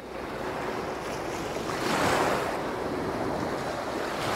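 Surf and wind ambience: a steady rushing sound that fades in at the start and swells about two seconds in.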